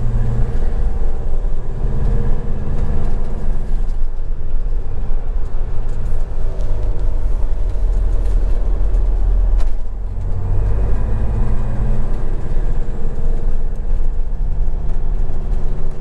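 Swift Kon-Tiki motorhome's diesel engine and road noise heard from inside the cab while driving, the engine note climbing, dropping away about four seconds in, and climbing again after a brief dip about ten seconds in.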